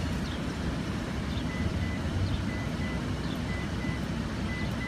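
Car driving along a road, heard from inside the cabin: steady engine and road noise. From about a second and a half in, a faint high beep repeats about three times a second.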